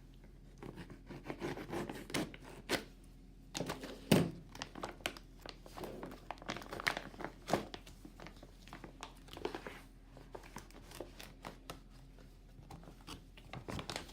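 Thick plastic MRE pouch being opened and its contents handled: irregular crinkling and tearing of plastic packets, with a few knocks as items are set down, the loudest about four seconds in.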